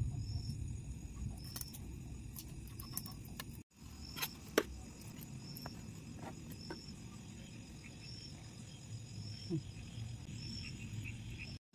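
Faint clinks and scrapes of a steel knife and fork on a steel plate as chicken is cut, over a cricket chirping steadily about once a second.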